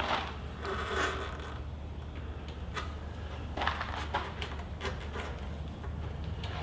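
Handling noise from gloved hands fitting a spark plug into an outboard engine by hand: rustling and scraping with a few short light clicks, over a low steady hum.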